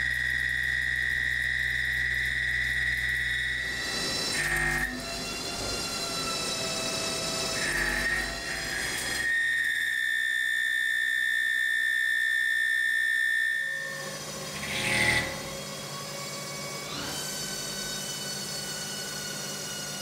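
Haas CNC lathe boring soft jaws on the spinning chuck with a boring bar: a steady high-pitched whine while the tool cuts. The whine changes pitch and breaks off with short noisy bursts several times as the tool moves from pass to pass.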